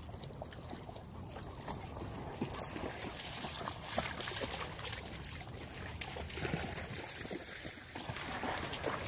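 Shallow floodwater trickling and lightly splashing: a steady wash with small, irregular splashes as dogs move through the wet ground at the water's edge.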